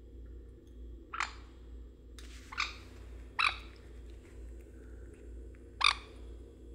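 Pet sun conure making four short, sharp sounds, irregularly spaced, over a steady low hum.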